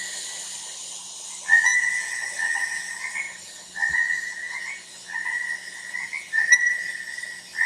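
A frog calling: a series of long, high, steady notes, each about a second long and rising a little at the end, repeating every second or so.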